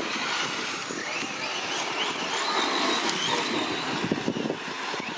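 Off-road vehicles running over rough ground: a faint whine rises and falls in pitch over a steady rushing noise, with a few rattling knocks about four seconds in.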